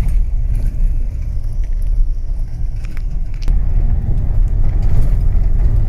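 Car driving up a gravel track, heard inside the cabin: a steady low engine and road rumble, with a few sharp clicks near the middle.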